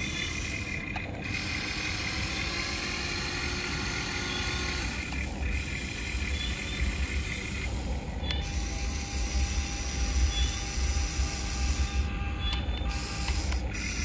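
Electric motors of a Huina 1594 RC excavator whining as the boom and arm move up and down. The whine stops and changes pitch a few times, about five and a half, eight and twelve seconds in, as one movement ends and the next begins.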